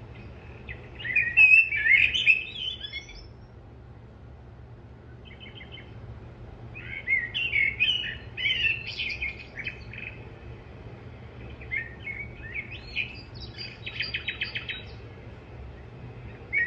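Birds chirping and twittering in three bursts of song, about a second in, around seven to ten seconds, and again near the end, the last with a quick run of repeated notes, over a low steady hum.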